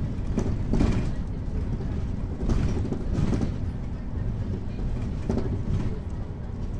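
Mercedes-Benz Citaro articulated city bus under way, heard from inside: a steady low engine and road drone, with a few brief louder rattles and jolts.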